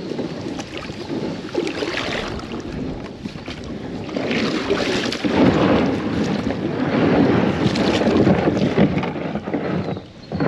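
Kayak paddling: water splashing off the paddle blades in swells every couple of seconds, with wind noise on the action camera's microphone.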